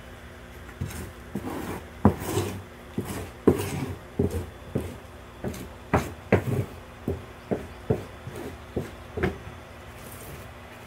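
An irregular series of light knocks and rubbing sounds, about two a second, from about a second in until shortly before the end.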